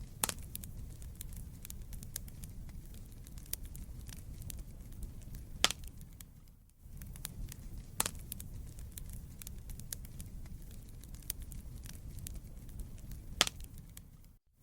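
Wood fire burning in a fireplace: a steady low rumble of flame with frequent sharp crackles and pops from the burning logs, two pops much louder than the rest. The sound briefly fades out and back in about halfway through.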